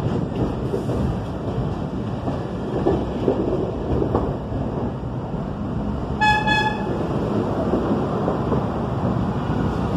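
New York City subway train running with a steady rumble, and one short horn toot a little past halfway.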